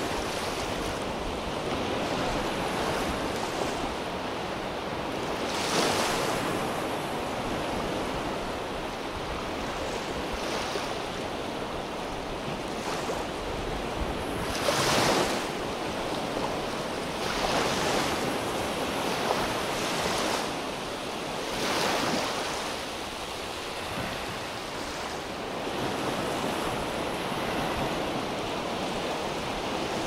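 Small waves breaking and washing up a sandy beach: a steady surf hiss with louder surges every few seconds as each wave comes in.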